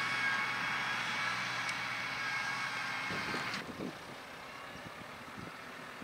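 Case IH Maxxum 120 tractor's diesel engine running steadily under load as it pulls a five-furrow plough, with a steady whine above the engine note. A little over halfway through, the sound cuts abruptly to a quieter, duller engine with some low rumbling.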